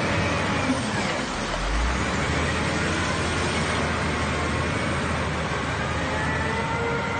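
Jingong wheel loader's diesel engine running steadily with a low hum as the loader scoops gravel and drives with a loaded bucket.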